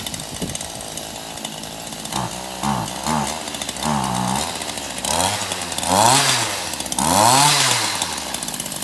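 Two-stroke chainsaw engine mounted on a child's bicycle, idling and then revved in a series of short blips, each rising and falling in pitch, the later ones longer and louder.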